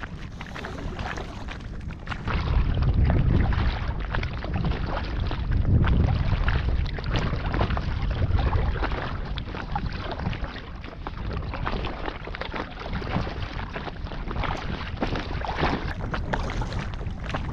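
Water splashing and lapping against an inflatable kayak as it is paddled, with wind rumbling on the microphone, heaviest from about two seconds in until about nine seconds.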